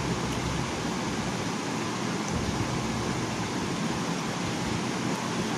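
Steady, even background hiss of room noise, like a fan running, with no strokes or clicks.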